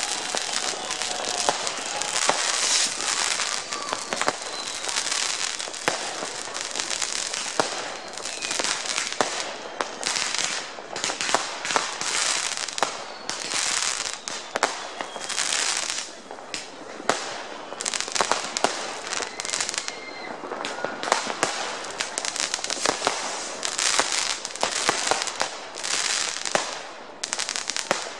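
Many New Year's fireworks going off at once, near and far: a continuous crackle with dense sharp firecracker bangs, and now and then a thin whistle from a whistling rocket.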